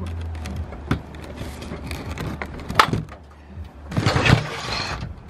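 Handling noise from a portable butane camp stove being unpacked from its box and set down: sharp plastic clicks and knocks, the clearest about a second in and just before three seconds, with rustling around four seconds and a low hum underneath.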